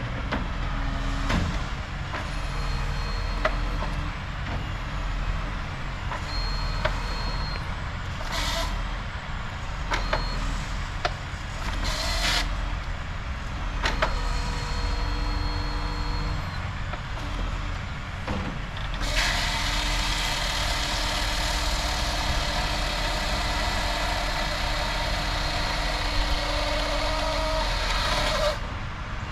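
Diesel engine of a truck-mounted knuckle boom crane running steadily under hydraulic load, with a few short hissing bursts. About two-thirds through, a loud steady rushing noise starts, runs for about ten seconds and cuts off suddenly.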